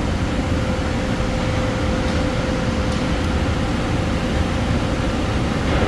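Hyd-Mech V-20APC vertical band saw running: a steady machine noise with a thin, steady whine that fades out near the end.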